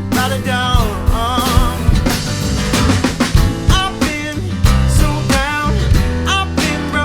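Rock song with full band: drum kit, bass and guitar, with a bending melodic line that may be vocals or lead guitar.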